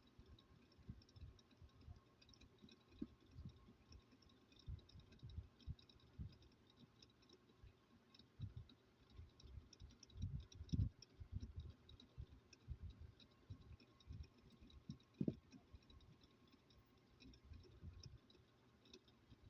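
Faint, irregular clicks and light knocks of small objects being handled, a few louder knocks in the middle.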